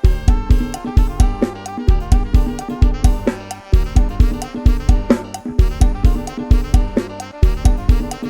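Instrumental Isan lam sing music in the 'lai hae' style: a drum kit and bass keep a steady, driving beat of heavy kick-and-bass thumps, with a melody line playing over them.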